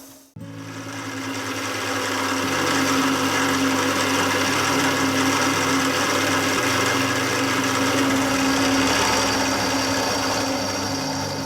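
Background music laid over the footage, fading in after an abrupt cut, with sustained low notes that change every few seconds.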